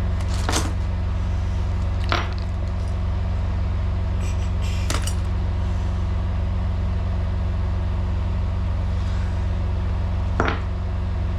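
A semi truck's diesel engine idling with a steady low drone, with four short sharp clicks or knocks of parts being handled, the last near the end.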